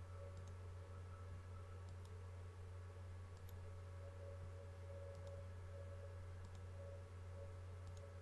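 Faint computer mouse clicks, a handful spread out over several seconds, over a steady low electrical hum.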